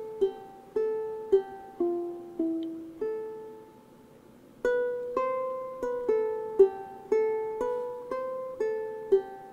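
Background music on a plucked string instrument: a slow tune of single notes, each struck sharply and fading away, about two a second, with a pause of about a second midway.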